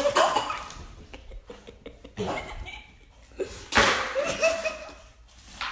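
A person laughing in a few short bursts, with scattered light taps in between.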